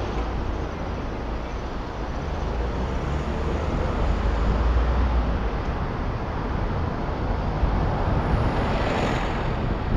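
Steady traffic and road noise from a moving vehicle, heard through a microphone mounted outside it, with a low wind rumble on the microphone that swells a little midway.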